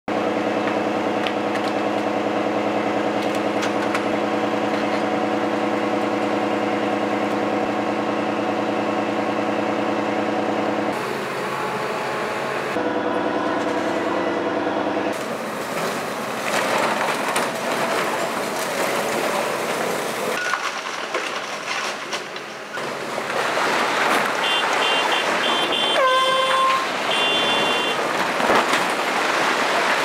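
Hitachi excavator's diesel engine running steadily at high revs while it works. Later it gives way to loud, irregular crashing and rumbling as the brick walls and roof come down.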